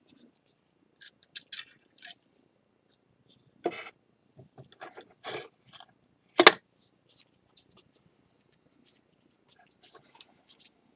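Small scrapes, clicks and taps of hand work on a ceramic bowl and tools, with one sharper knock about six and a half seconds in.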